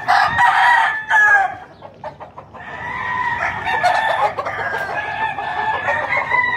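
Gamecocks crowing in their pens: several long crows overlap, with a short lull about two seconds in before the crowing starts again.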